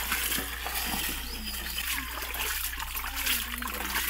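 Water pouring from a brass pot into an aluminium basin of snails, splashing as hands stir and wash the snails.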